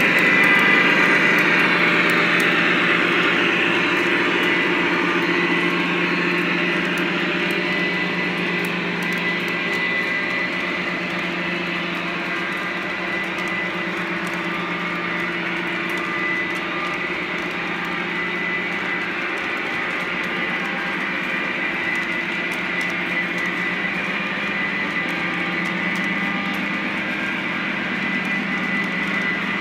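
Lionel Legacy O-gauge model train running past on three-rail track: a steady hum and rumble of the diesel locomotives and rolling wheels, loudest at the start as the locomotives pass and easing gradually as the tank cars follow, with faint light clicks.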